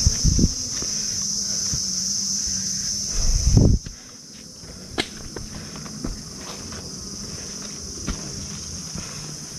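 Steady high-pitched drone of forest insects, loud for the first few seconds and then dropping sharply about four seconds in. A couple of low thumps come near the start and just before the drop, and scattered light clicks and footstep scuffs follow.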